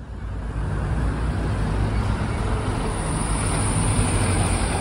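Street traffic noise: road vehicles running close by, a steady low rumble with hiss.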